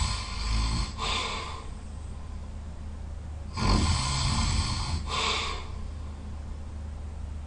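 Person snoring loudly: two long snores about four and a half seconds apart, each followed by a shorter, breathier sound.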